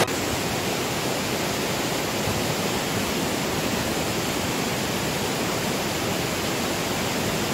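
Fast whitewater mountain stream rushing steadily and loudly through a rocky gorge.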